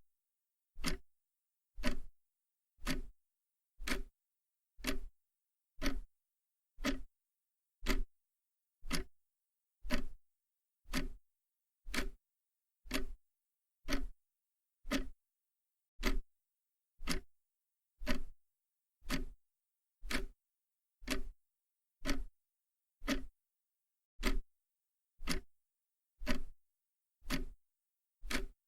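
Mechanical clock ticking steadily, one sharp tick about every second with silence between.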